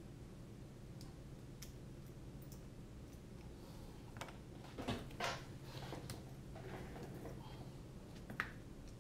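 Scattered light clicks and knocks of small quadcopter frame plates being handled and fitted together during reassembly, the loudest about five seconds in and again near the end, over a steady low hum.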